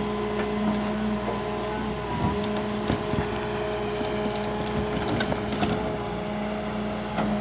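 Large excavator running with a steady engine drone, its bucket cutting through a tree stump's roots with scattered knocks and cracks.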